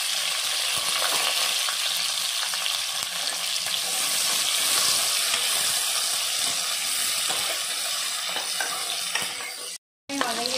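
Chopped onions sizzling in hot oil in an aluminium pot, stirred with a steel ladle that scrapes and clicks against the metal. The sound drops out for a split second near the end.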